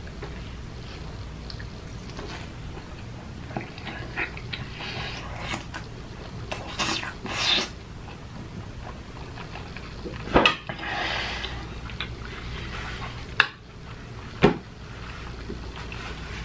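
A person eating close to the microphone: chewing and wet mouth noises, with a few sharp clicks of a fork against a dish. A steady low hum runs underneath.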